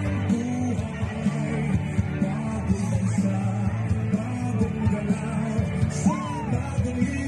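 A song with singing over a steady beat and bass line.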